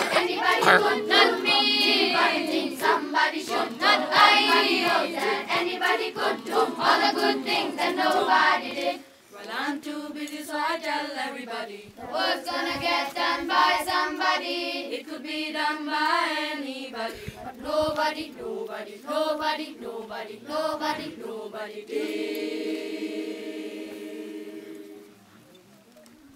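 A school children's choir singing a cappella, louder for the first nine seconds, then softer after a brief break, ending on a long held chord that dies away about a second before the end.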